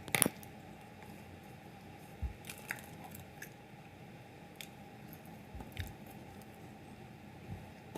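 Faint eating sounds: scattered soft mouth clicks and chewing noises, a few to the second at most, over a low steady hum.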